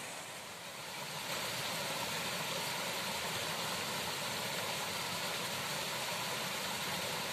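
Steady, even background noise with no distinct events.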